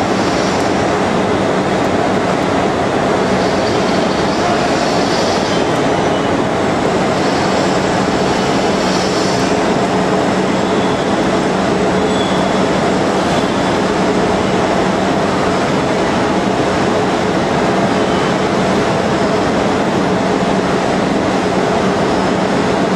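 CNC shaping lathe for porcelain insulators running, a steady machine noise with a constant hum. Brief bursts of hiss come a few times in the first half.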